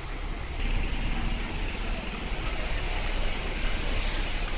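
Street traffic dominated by a double-decker bus passing close by: a low engine rumble with road noise, growing louder about a second in.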